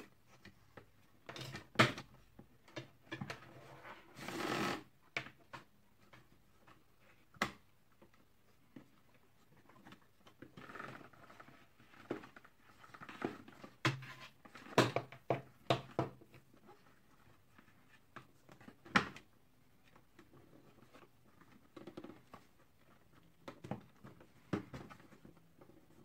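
Scattered clicks, knocks and rustling of the plastic housing and power cord of an Electrolux vacuum cleaner being handled as its cord rewind reel is tested by hand. A brief rush of noise comes about four seconds in.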